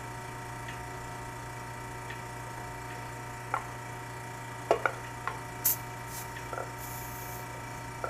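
Scattered small clicks from the brass valves and hose fittings of a refrigeration gauge manifold being worked by hand. A short high hiss comes near the end as refrigerant is let out of the manifold. A steady low hum runs underneath.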